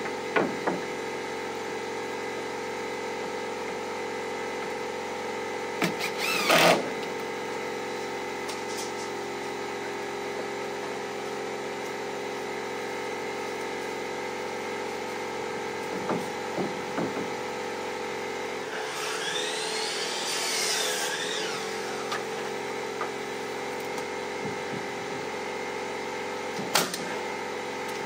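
A steady mechanical hum from a running machine. A few sharp knocks sound over it, the loudest about six seconds in and another near the end. About two-thirds of the way through comes a brief whirring that rises and falls in pitch.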